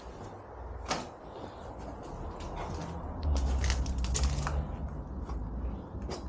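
A sharp knock about a second in, then a run of clicks and knocks over a low rumble: knocking and handling sounds in a derelict room.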